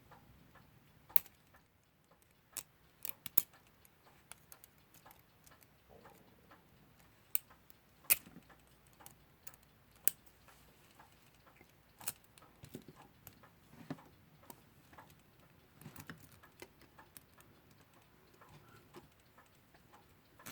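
Scattered, irregular sharp clicks and taps of small tools and metal parts against an alarm clock movement as a stuck washer is worked at, with a second or two between them.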